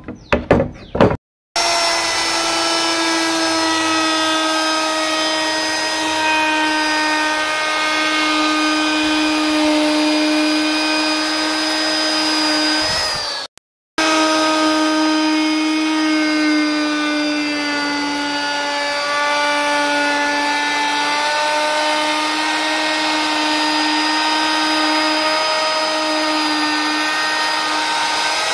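Electric plunge router running with a steady high whine as its bit rounds over the edge of a teak wooden speargun stock, the pitch wavering slightly as it cuts. It drops out briefly about halfway through and then resumes. In the first second, a few light taps and knocks come from a pencil and steel square on the wood.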